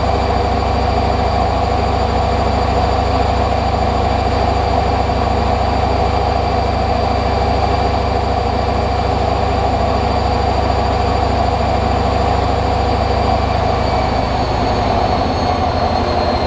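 Hoover Nextra HNL662 washing machine in its final high-speed spin: the drum and motor run with a loud, steady whine, whose pitch starts to fall near the end as the spin begins to slow.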